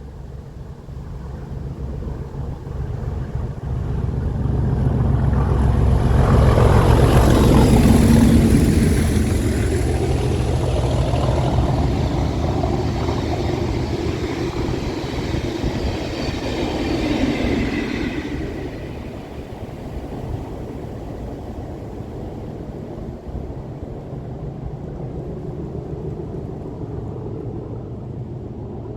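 Pair of British Rail Class 37 diesel locomotives working hard up a steep incline. Their English Electric V12 engines grow loud as they pass, peaking about eight seconds in, with the rattle of the train running by until it drops at about eighteen seconds to a lower steady rumble as the locomotives pull away uphill.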